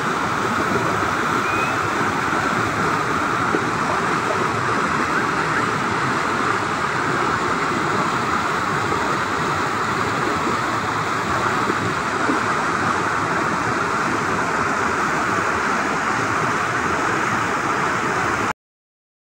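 River rapids: whitewater rushing steadily over rocks, cutting off suddenly near the end.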